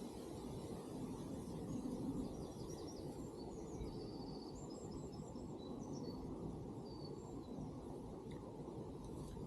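Small birds chirping and twittering in short high calls for a few seconds through the middle, over a steady low background rumble.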